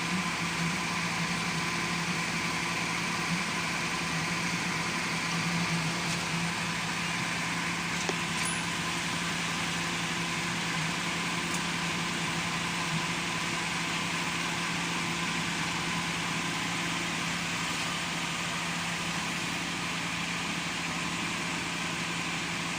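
Car engine running steadily: a constant low hum over a steady wash of noise, with a few faint clicks.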